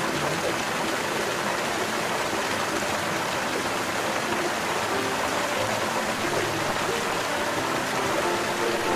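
Steady rushing hiss, like flowing water, with faint background music notes underneath.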